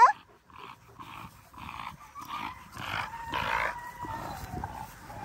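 Dogs playing together, making a run of short, rough vocal sounds about two a second, with a faint thin whine in the second half.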